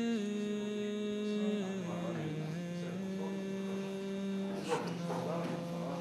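Slow Orthodox prayer chant in Church Slavonic: long held sung notes that step down and up in pitch. A soft knock comes about three quarters of the way through.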